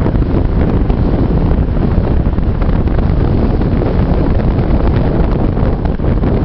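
Wind buffeting the microphone of a camera held at the window of a moving car, a loud steady rumble over the engine and road noise of the cars driving along.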